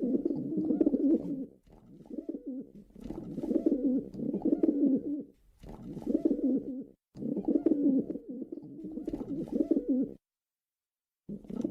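Pigeons cooing: low, wavering coos in runs of a few seconds, with short breaks between them and a silence of about a second near the end.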